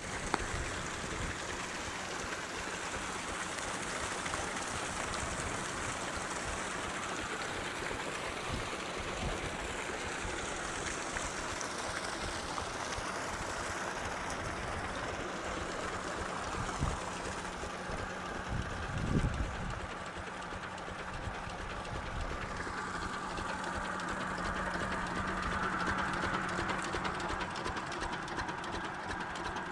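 Old 8 hp Field Marshal single-cylinder diesel engine running steadily, belt-driving an irrigation water pump, with water gushing and splashing from the pump's outlet hose. The engine's steady hum comes through more strongly in the later part, and there is one brief thump about two-thirds of the way through.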